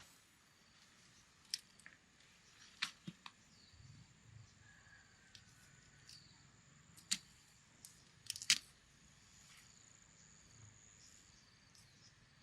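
Faint high insect chirring, with a handful of sharp separate clicks and taps; the loudest come about seven and eight and a half seconds in.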